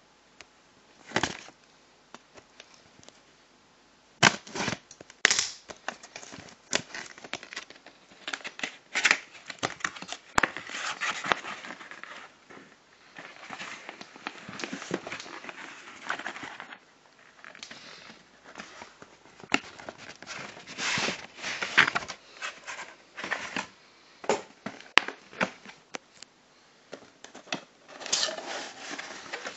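Cardboard box being handled and opened by hand: irregular scrapes, taps and rustles as flaps are lifted and an inner cardboard box is slid out, with quieter pauses between.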